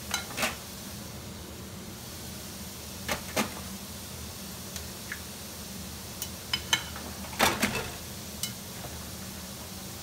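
Minced garlic frying in oil in a pan: scattered sharp pops and crackles, several close together near the middle and later on, over a steady low hum.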